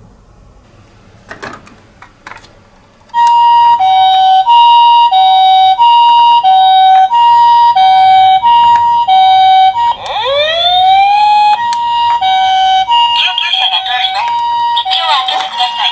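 Toy ambulance minicar's electronic two-tone siren, a high and a low note alternating about once a second each. It starts about three seconds in and runs on loudly, broken briefly by a rising whine about ten seconds in. A few faint clicks come before it starts.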